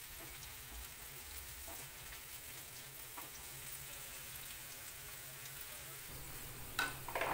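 Chopped capsicum, cashews and raisins frying lightly in ghee in a kadai: a faint, steady sizzle with scattered small crackles. A short louder noise comes near the end.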